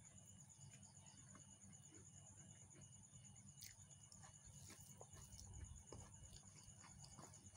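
Near silence with faint eating sounds: small clicks of chewing and of fingers scooping rice on a steel plate. Under them runs a steady, high, finely pulsing trill and a low hum.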